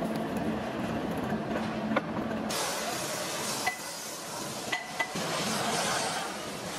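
Metal clinking sharply and ringing four times over steady workshop machine noise; a hum gives way to a loud hiss about two and a half seconds in.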